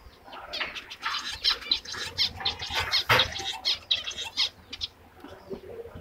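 Zebra finches giving a quick series of short chirping calls, mixed with a brief flutter of wings as one bird flies across the cage.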